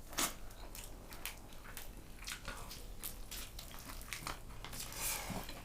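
Someone eating: crunchy bites and chewing, heard as scattered short crackles and clicks, with a sharper crunch just after the start.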